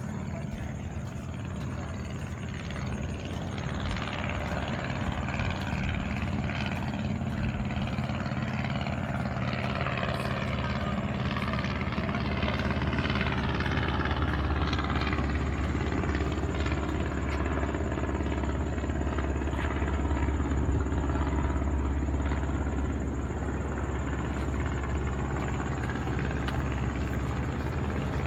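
A steady engine drone with a low hum, growing louder a few seconds in and then holding, over a broad rushing haze.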